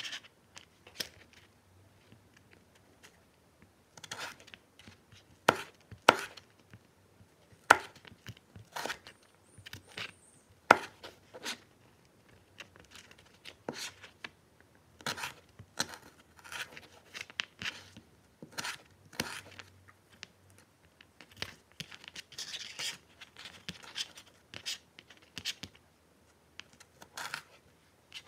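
Kitchen knife cutting carrots on a cutting board: irregular sharp knocks of the blade through the carrot onto the board, coming in runs with short pauses between them.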